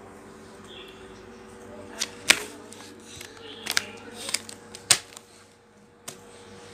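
Felt-tip markers and their plastic case being handled: a handful of sharp plastic clicks and knocks, the loudest about two seconds in and again near five seconds.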